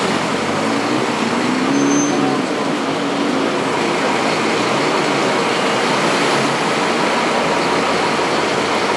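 Steady road traffic noise from engines and tyres, with one vehicle's engine rising and falling in pitch about two seconds in.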